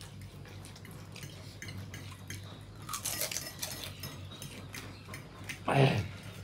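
Metal spoon clinking and scraping on steel plates while eating, with soft scattered clicks and a brief louder noise about three seconds in. A short voiced sound from one of the eaters comes near the end.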